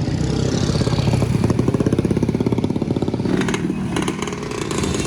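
Motorcycle engine running close by, its firing pulses standing out plainly for a couple of seconds and the engine note shifting about three and a half seconds in.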